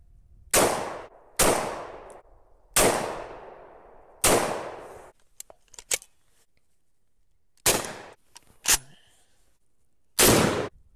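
Gunshots: about seven single shots spaced roughly one to three and a half seconds apart, each sharp crack followed by a trailing echo that dies away.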